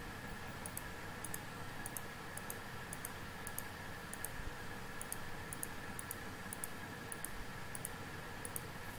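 Computer mouse clicking about twice a second, each click a quick double snap of press and release, as vertices are placed one after another while tracing a line. A steady background hiss runs underneath.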